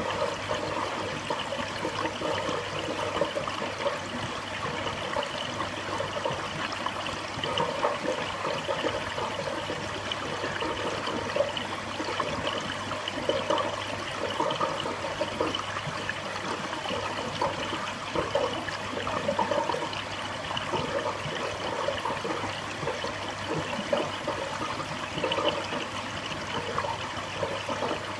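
Reef aquarium water circulating: a steady trickling and splashing of water, over a low steady hum.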